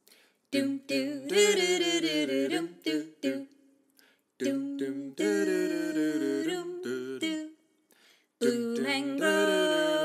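Vocal music: a voice singing in three phrases, with short breaks between them.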